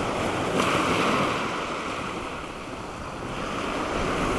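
Waves breaking and washing up a shingle beach. The surf swells about half a second in, eases off, and builds again near the end.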